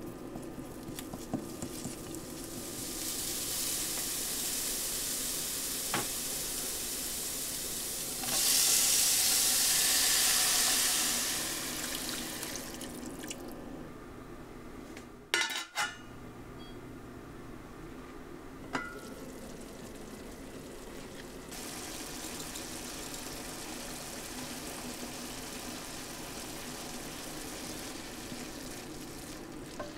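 Food sizzling in a hot frying pan: minced garlic frying in oil. A much louder hiss comes about eight seconds in as liquid goes into the hot pan, and it fades by about thirteen seconds. There are a few sharp clatters around fifteen seconds, then a lower steady sizzle while a silicone spatula stirs the vegetables near the end.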